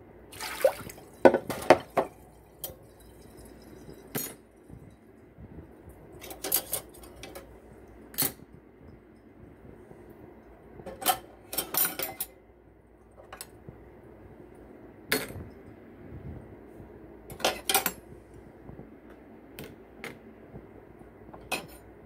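Metal cutlery and dishes clinking and clattering as they are picked up from a sink and set down one by one: about a dozen separate clinks, busiest in the first couple of seconds.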